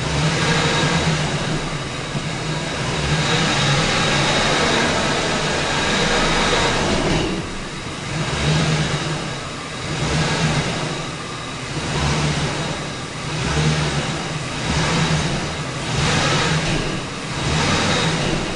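Ford 4.6 V8 engine running under throttle, heard from inside the truck's cab, with its sound swelling and falling again and again, about every second or so, from about eight seconds in. It is in drive while the 4R75W automatic transmission loses forward clutch pressure and drops in and out of gear.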